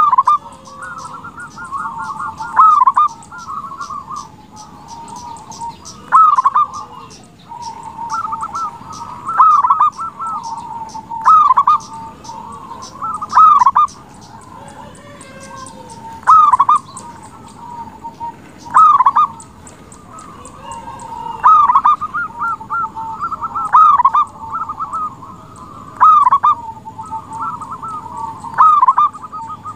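Zebra dove (perkutut) singing: repeated phrases of rapid, trilling coos, each ending in a loud note, one phrase every two to three seconds.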